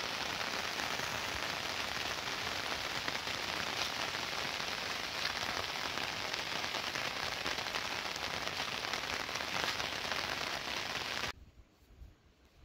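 Steady rain falling on a surface, a dense patter of drops, cutting off suddenly near the end.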